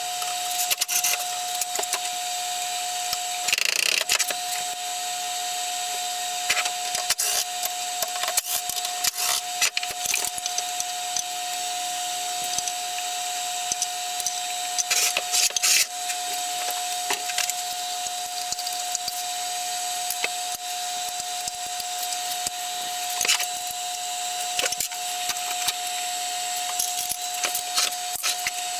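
Irregular clicks, knocks and rattles of hand tools and loose parts being handled, over a steady high-pitched hum.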